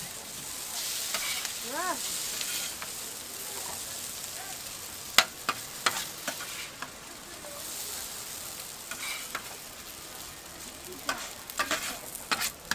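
Fried noodles sizzling on a hot flat-top griddle while a metal scraper scrapes and knocks across the griddle plate, with sharp clacks about five seconds in and a quick run of them near the end.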